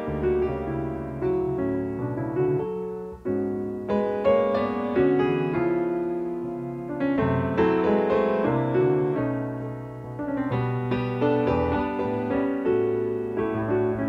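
Piano music, a steady run of single notes and chords.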